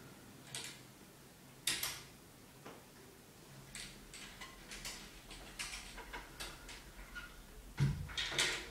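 Light footsteps and scattered taps and clicks on a hard floor in a quiet small room, with a louder knock and a short cluster of taps near the end.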